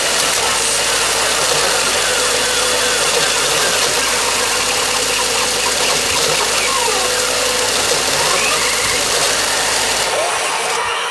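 Pachinko machine (Ginza P北斗の拳9闘神) playing a loud, steady rushing sound effect that cuts in suddenly and lasts about ten seconds, laced with quick chirping glides.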